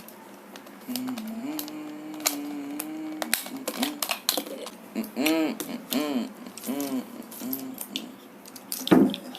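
Plastic Rubik's Cube pieces clicking and snapping as the cube is pried apart and turned, a steady patter of sharp clicks, with a person humming wordlessly over it.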